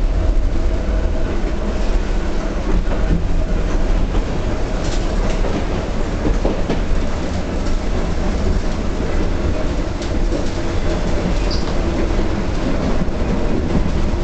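1923 J.G. Brill streetcar under way on its track, heard from aboard: a steady rumble of wheels and running gear, with occasional clicks from the rail.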